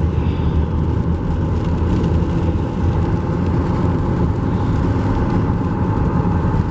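Car driving at a steady pace, heard from inside the cabin: a constant low engine hum with road noise.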